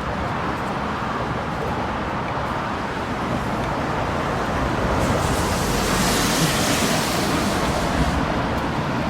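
Road traffic noise: a steady hiss of passing vehicles, swelling as one goes by about five to eight seconds in.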